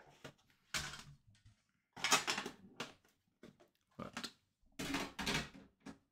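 Handling of a metal trading-card tin: a few separate scrapes and light knocks as the tin and its lid are moved and set down on a stack of other tins.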